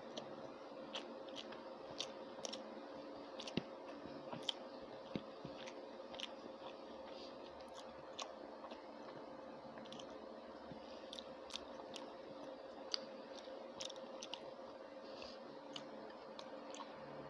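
A person eating rice and curry by hand: chewing with many scattered sharp, wet clicks, over a steady hum.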